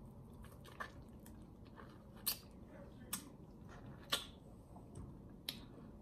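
Wet mouth smacks and sucking from a person sucking meat off a spare rib bone, about half a dozen sharp smacks roughly a second apart.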